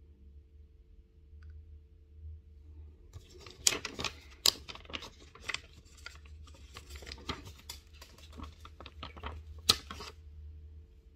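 Crackling and clicking of a plastic sheet of adhesive face stickers being handled as stickers are peeled off it, an irregular run of small crackles with a few sharp snaps, starting a few seconds in and stopping near the end.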